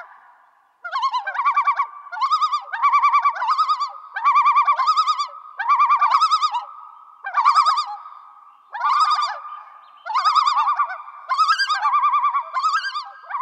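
A warbling, bird-like whistling call in short phrases, each with a fast trill, repeated about every second and a half.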